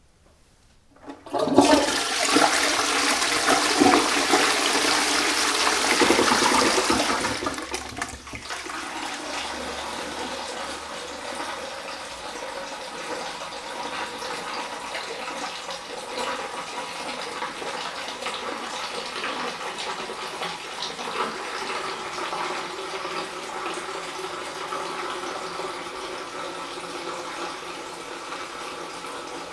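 Toilet flushing: a loud rush of water starts about a second and a half in and lasts about six seconds, then falls to a quieter steady flow as the cistern refills.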